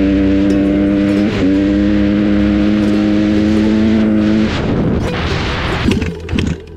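Honda CRF150R dirt bike's single-cylinder four-stroke engine running at high, steady revs, with a short break in the note about a second in. From about four and a half seconds in, the steady note gives way to rougher, uneven revving.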